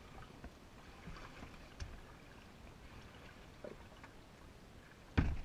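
Kayak paddle strokes dipping in the water, with a few light knocks, and one loud thump near the end.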